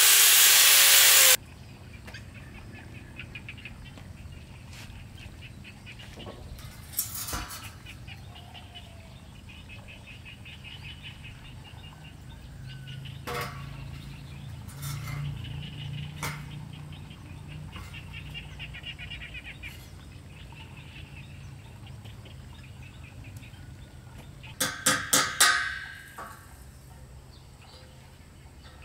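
A handheld power tool working on a light steel roof-truss member, loud for about the first second, then cutting off suddenly. After it come faint bird chirps, and near the end a quick run of five or six sharp knocks.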